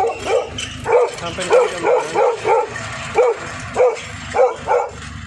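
A dog barking repeatedly and loudly, about two barks a second, with short pauses near the end. It is the alarm barking of a guard dog announcing that a visitor has arrived.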